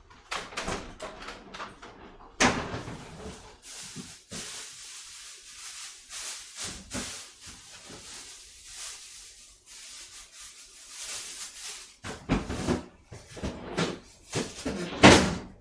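Kitchen handling noises: knocks and clatter like a door or cupboard being opened and shut, with rustling in between and a louder knock near the end.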